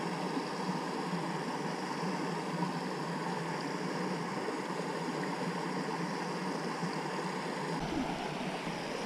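Steady rush of water flushing down a canal lock, an even, unbroken noise. A low rumble joins near the end.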